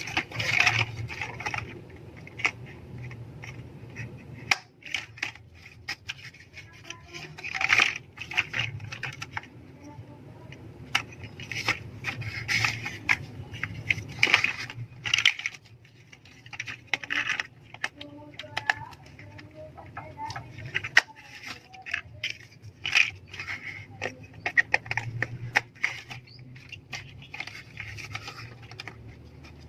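LEGO plastic pieces being handled and pressed together: irregular sharp clicks with short bursts of rattling as parts are sorted.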